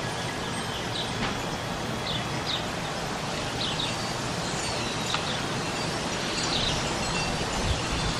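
Small birds chirping in short repeated calls over a steady rush of wind.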